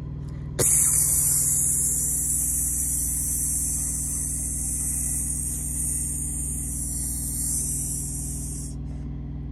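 A long, high, steady hiss, likely voiced through the teeth, that starts suddenly about half a second in and stops shortly before the end. It mimics refrigerant gas escaping from a freezer punctured while chipping off ice, which she takes for a Freon leak. Under it is the steady low hum of the Peterbilt semi truck's idling engine.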